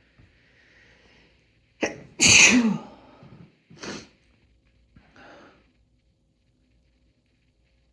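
A man sneezing once, loudly. A drawn-in breath comes first, then a sharp catch and the full voiced sneeze about two seconds in. A shorter, sharp breathy burst follows about a second and a half later, then a softer breath out.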